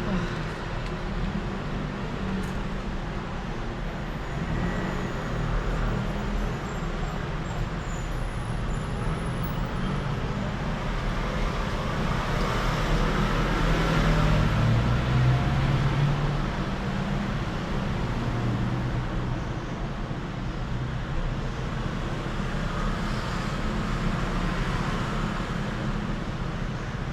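Road traffic noise: a steady rumble of passing cars, growing louder for a few seconds in the middle as a vehicle goes by.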